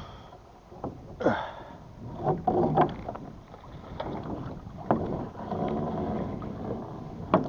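Small boat's anchor being hauled up by hand: irregular knocks and creaks as the rope and gear work against the boat.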